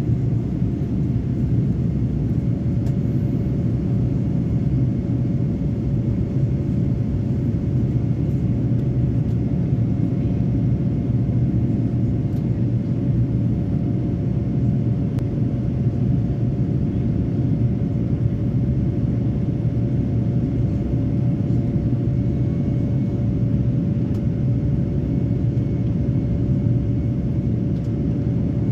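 Cabin noise of a Boeing 787-9 climbing after takeoff: the steady low roar of its GEnx-1B turbofan engines and the airflow, with faint steady whining tones above it.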